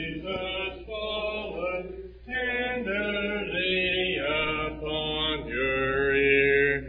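Church congregation singing a hymn unaccompanied, several voices together in long held notes, with a short break between phrases about two seconds in.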